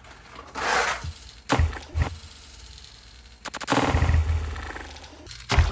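Die-cast toy monster truck dropping down a plastic drop-track playset and landing in a tub of mud: a rush, two sharp knocks about half a second apart, then a louder splashing stretch, and one last sharp knock near the end.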